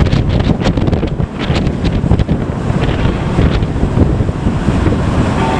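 Strong wind buffeting the microphone, a heavy low rumble with irregular sharp crackles over the first three seconds or so, over the wash of open water.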